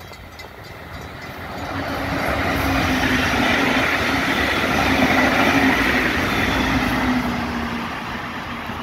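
Brightline diesel-electric passenger train passing: the rumble of wheels on rail and a steady hum build over a couple of seconds, hold, then fade near the end as the train moves away.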